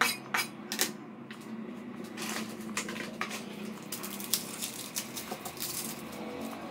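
Irregular light knocks and clatter of kitchen things being handled on a counter: a knife, a plate and a plastic chopping board set down and moved about.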